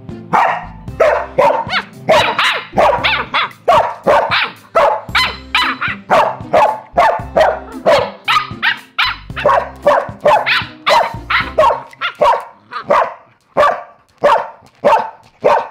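A Samoyed barking over and over in a rapid run, about two barks a second, with a short lull about three-quarters of the way through. Soft background music runs underneath.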